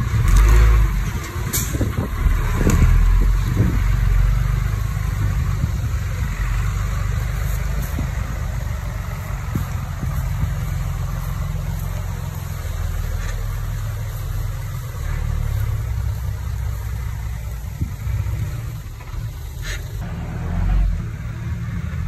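Komatsu D20P mini crawler bulldozer's diesel engine running with a steady low drone, swelling louder in the first few seconds and again near the end. Two short sharp knocks are heard, one near the start and one near the end.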